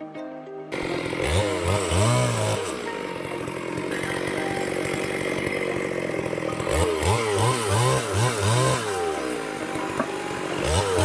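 Chainsaw running while cutting firewood, its engine revving up and falling back again and again.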